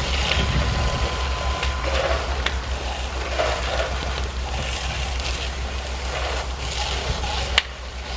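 Fire engine running steadily with a low rumble, with faint distant voices; a sharp click about seven and a half seconds in.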